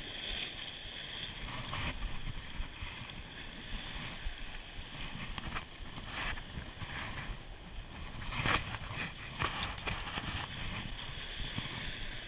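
Sea washing against coastal rocks and wind buffeting the microphone, a steady rushing noise with low rumble. A few sharp knocks from handling come about two-thirds of the way in.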